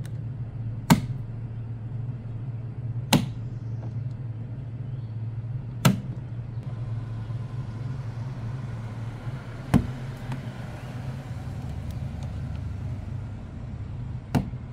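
Five sharp plastic clicks a few seconds apart as push-tab trim clips in the wheel-well liner of a Subaru Outback are pressed in and pried loose, over a steady low hum.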